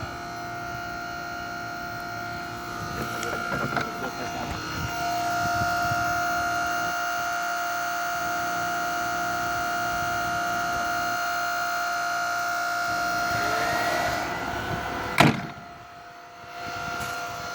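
Hydraulic pump and electric motor of a prototype full-electric mini excavator running with a steady high whine, louder through the middle as the hydraulics work. A single sharp knock comes about fifteen seconds in, after which the whine drops briefly and then returns.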